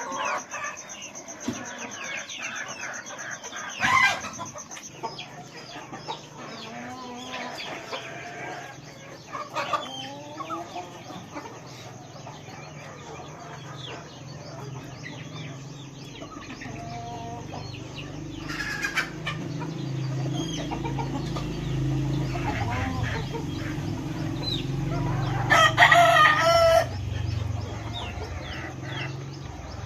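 A flock of chickens clucking and calling, with a rooster crowing loudly once near the end. A low hum builds up through the second half.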